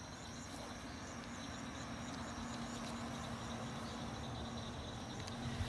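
Outdoor night ambience: a steady low hum, with faint high chirps repeating about three times a second.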